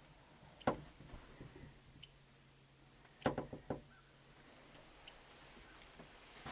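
A few faint, sharp clicks and knocks: one about a second in, then a quick cluster of three or four around three seconds in.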